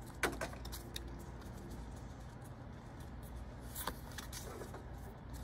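Pokémon trading cards being handled and sorted in the hands: scattered soft clicks and slides of card against card, over a low steady hum.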